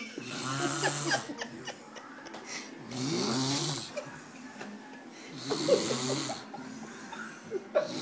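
A boy snoring in a steady rhythm: three long snores about two and a half seconds apart, with quieter breathing between them.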